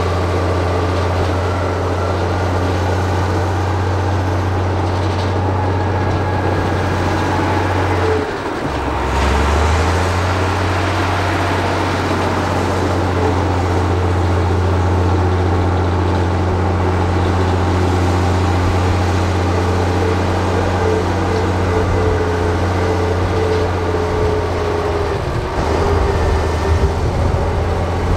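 Bulldozer's heavy diesel engine running steadily with a deep hum. About eight seconds in, the engine note drops briefly and picks back up. Later, a higher wavering whine runs over it for a few seconds.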